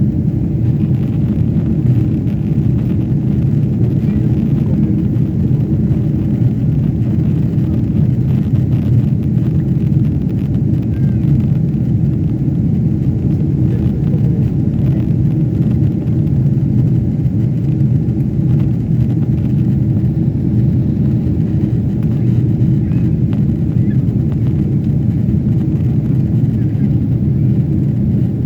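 Steady low rumble of a jet airliner's engines and airflow heard inside the passenger cabin, even throughout.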